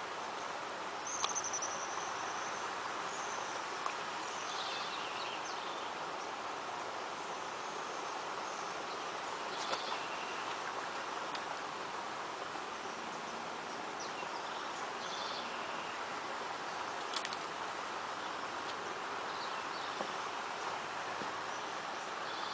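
Outdoor ambience: a steady hiss with birds chirping now and then, and a few faint clicks.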